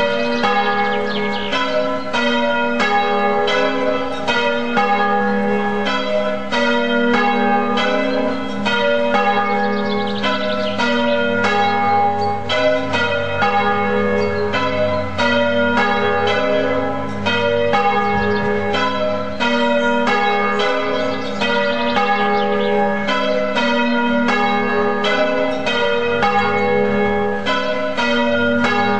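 Church bells ringing: a steady, even succession of strokes on bells of several pitches, each one ringing on and overlapping the next.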